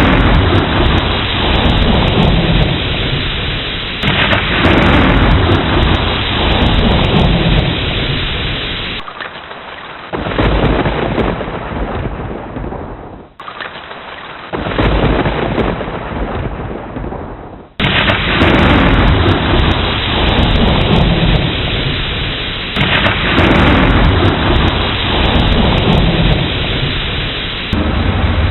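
Thunderstorm: steady heavy rain with repeated deep rolls of thunder, each starting suddenly and rumbling away over a few seconds. There is a quieter lull near the middle before the rumbling comes back loud.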